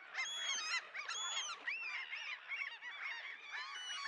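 A seabird colony calling: many short calls from birds overlapping at once, with a few louder calls near the start.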